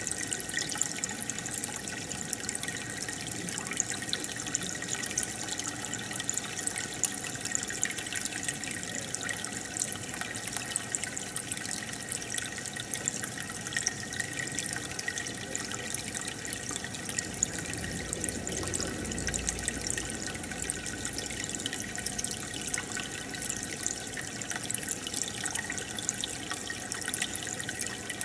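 Aquarium water bubbling and trickling steadily, full of tiny pops from the air bubbles rising through the tank and bursting at the surface.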